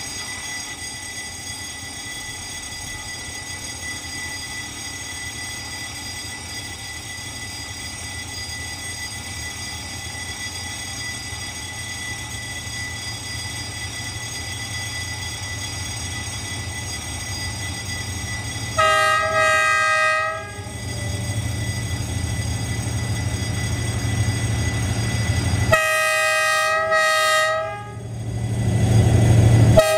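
D19E diesel-electric locomotive approaching with a passenger train, its engine hum growing louder. It sounds its multi-tone air horn twice as a warning, each blast about two seconds long, the first about two-thirds of the way through and the second near the end.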